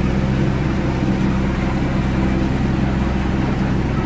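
Sailboat's inboard engine running steadily, a constant low drone, over a rush of wind and water.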